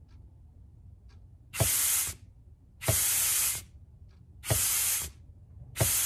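Short blasts of compressed air, at about 40 psi, from an air nozzle into the direct-clutch feed of a Ford C4 transmission's front pump: four hissing bursts of about half a second each, each starting sharply. The air strokes the direct clutch piston so the clutch pack clearance can be read on a dial indicator.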